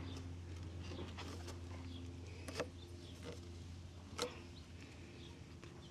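A few light clicks and knocks of rigid PVC pipe and fittings being handled and pushed together by hand, over a steady low hum.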